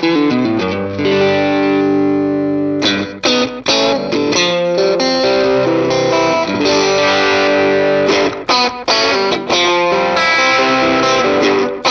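Electric guitar played through a Valeton GP200R multi-effects processor on a lightly overdriven crunch preset: strummed chords left to ring, broken twice by short choked strums.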